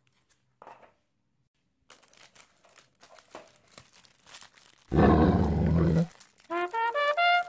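Plastic toy wrapper crinkling as it is handled and torn open, interrupted about five seconds in by a loud roar sound effect lasting about a second. Near the end comes a quick run of rising musical tones.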